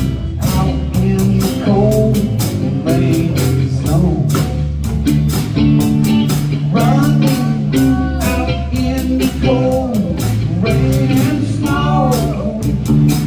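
Live blues-rock band playing an instrumental passage: electric guitar lead with bending notes over bass guitar and a drum kit keeping a steady beat.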